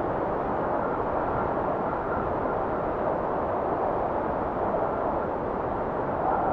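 Steady wind blowing, an even rushing sound with a faint whistling tone now and then.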